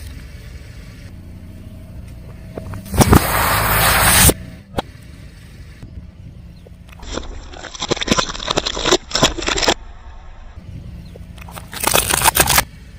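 Car engine running low while its tyres roll over and crush objects. There is a loud burst about three seconds in, a run of crackling and snapping from about seven to ten seconds, and another short crackling crunch near the end.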